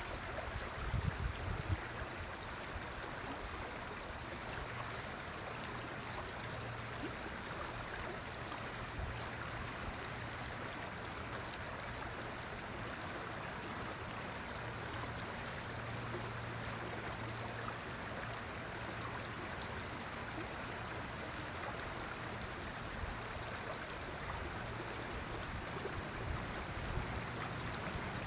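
River water flowing steadily, an even, continuous rushing, with a faint low hum that comes and goes.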